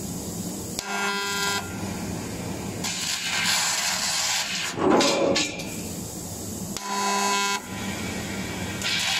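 GWEIKE fiber laser tube cutter cutting holes in a round metal tube: the hiss of the cut comes and goes as the head works, and twice a short steady buzz sounds from the machine, about a second in and again near seven seconds.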